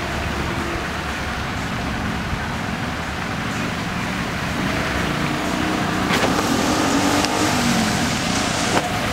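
A motor vehicle's engine running, a steady low noise that holds at an even level.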